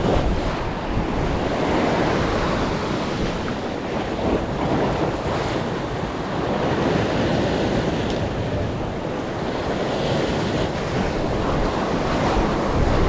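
Ocean surf breaking and washing over the rocky edge of a reef in a continuous rush that swells and eases, with wind buffeting the microphone.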